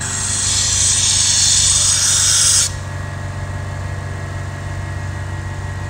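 A hiss of rushing air that builds for nearly three seconds and cuts off suddenly, over the steady low hum of a running machine, likely the vacuum laminator.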